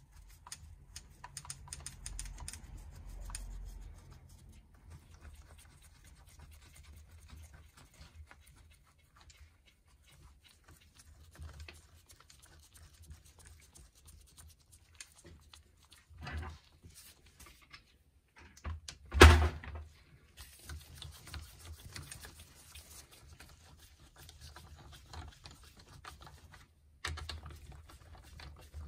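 Light metallic clicks and taps of hand work on the rocker-arm assembly and its bolts on a 250 cc Shineray ATV cylinder head. A single sharp knock about two-thirds of the way through is the loudest sound, with a smaller one shortly before it.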